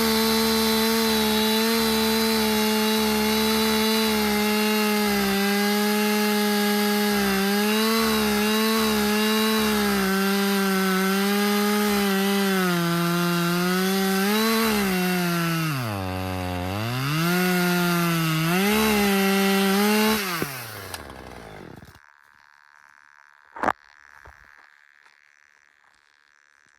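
Husqvarna T540XP Mark III 40 cc two-stroke top-handle chainsaw running at high revs cutting wood, its pitch wavering as the chain loads up and dropping sharply about 16 seconds in before climbing back. The engine then winds down and falls quiet about 21 seconds in, followed by a single sharp click.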